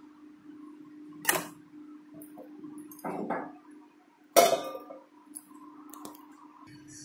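Steel kitchenware clattering as a stainless steel vessel and a ladle are handled: a sharp clink about a second in, a rattling scrape around three seconds, and a loud metal clang a little past four seconds, then a couple of small clicks. A steady hum runs underneath.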